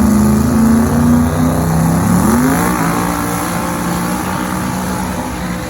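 Car engine running with a steady note, revving up a little after two seconds in, then slowly getting quieter.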